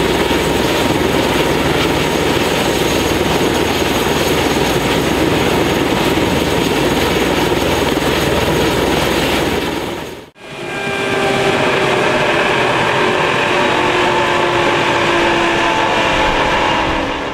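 Airbus H145 helicopter's twin turboshaft engines and turning main rotor running on the ground: a loud, steady rush with a whine. After a cut about ten seconds in, the whine stands out as several clear tones that slide slowly lower.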